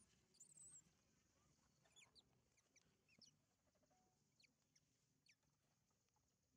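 Faint, short, high-pitched animal calls. A wavering squeal comes near the start, then a scatter of quick chirps follows over the next few seconds.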